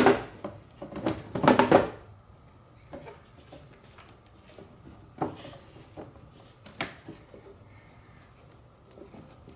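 Handling of an engine air-filter box and a new air filter: a burst of rustling and knocking near the start, then a few scattered sharp knocks and clicks as the filter is fitted.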